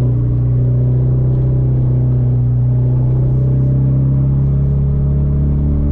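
Straight-piped Hyundai Genesis Coupe's turbocharged four-cylinder engine droning steadily at constant revs while cruising, heard from inside the cabin.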